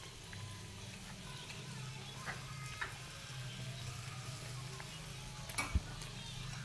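Sliced beef and sausages sizzling faintly on a round grill pan over a portable gas stove, with a few light clicks of a fork against the pan and one sharper knock near the end. A steady low hum runs underneath.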